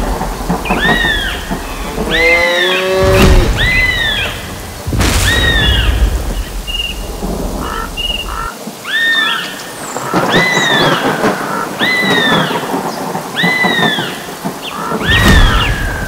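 Thunderstorm sound effect: steady rain with thunder and a few sharp thunderclaps, over a bird's high arching chirps repeating about once a second. A cow moos once about three seconds in.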